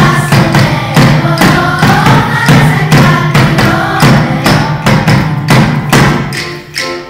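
Children's choir singing a song over a steady beat on a large two-headed drum, about two to three strokes a second, with instrumental accompaniment. Near the end the drum beat and singing drop away and the music goes quieter.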